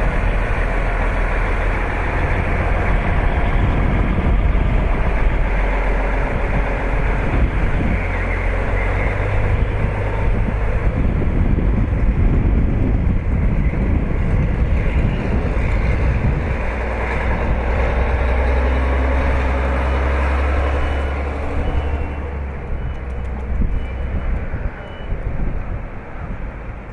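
Heavy trucks running as they drive through shallow floodwater, a loud steady rumble of engines and water. A faint repeated beeping comes near the end.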